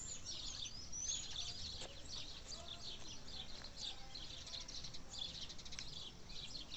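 Many birds chirping and twittering together, a dense, unbroken chorus of quick high calls with a few lower calls beneath.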